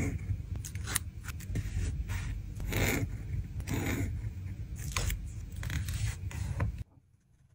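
Close, dry scratching and scraping of a pen tip and a plastic ruler on journal paper, with light ticks and taps from stickers and metal tweezers being handled; the sounds come in irregular strokes and stop abruptly near the end.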